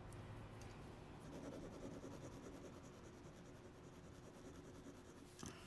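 Faint scratching of a 0.5 mm mechanical pencil's graphite lead drawing on paper, with a light click near the end.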